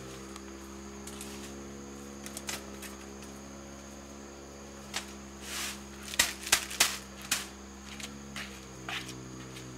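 A steady hum of several held tones, with a few sharp taps and clicks in the second half, the loudest a quick run of them about six to seven seconds in.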